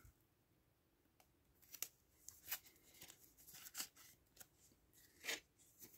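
Near silence with faint, scattered rustles and light clicks of a trading card being slid into a clear soft plastic card sleeve.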